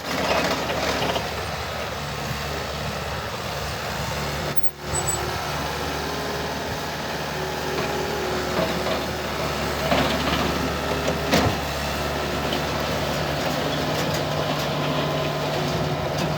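Bobcat T190 skid steer's diesel engine running steadily, with small shifts in engine speed, a brief dropout about four and a half seconds in, and a couple of sharp knocks near the end.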